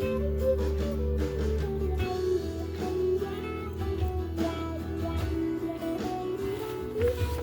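Guitar improvising lead lines over a blues backing track, with sustained bass notes underneath.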